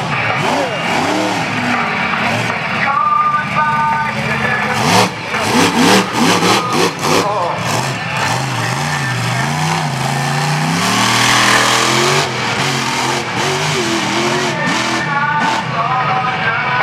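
Monster truck engine revving hard and easing off as the truck drives and turns on a dirt arena floor, with its pitch climbing steeply about ten seconds in. A run of loud knocks comes about five to seven seconds in.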